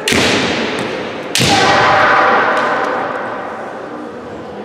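Two sharp cracks of kendo strikes, bamboo shinai hitting, about a second and a half apart. The second is followed by a loud kiai shout that rings on in the hall.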